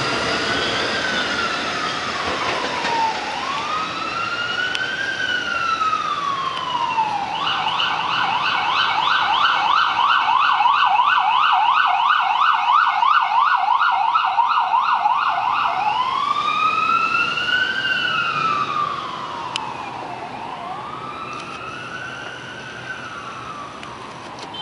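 Emergency vehicle siren sounding a slow rising and falling wail, switching about seven seconds in to a fast yelp for about eight seconds, then back to the wail and fading near the end.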